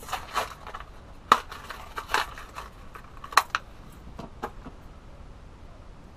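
Crankbait's plastic packaging being handled and opened: a series of sharp crackles and clicks, the loudest about a second in and again about three and a half seconds in, dying away after four and a half seconds.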